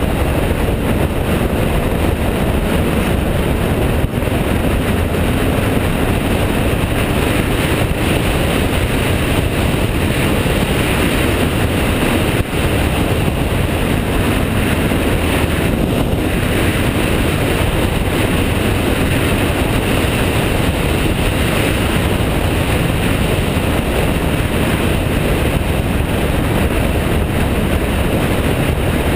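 BMW F650GS motorcycle cruising at a steady speed: an even, unbroken rush of engine, wind and road noise on the bike-mounted camera's microphone.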